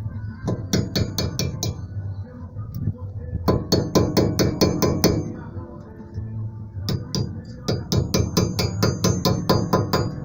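Hammer tapping the pins back into a Chevette's brake caliper to hold the new anti-rattle pad spring: three runs of quick metallic strikes, about five a second, each with a short ringing tone.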